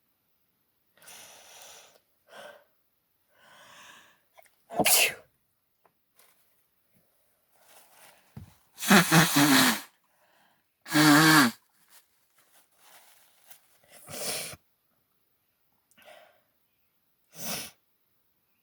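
A woman in an allergy sneezing fit: about five sudden, loud sneezes, some of them voiced, with quieter breaths in between. The loudest two come in the middle.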